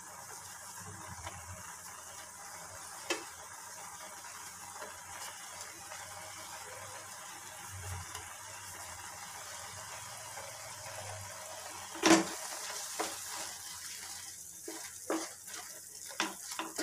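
Beetroot and milk mixture simmering in a pan with a soft, steady hiss. A sharp knock comes about twelve seconds in, then a wooden spatula knocks and scrapes against the pan as the mixture is stirred near the end.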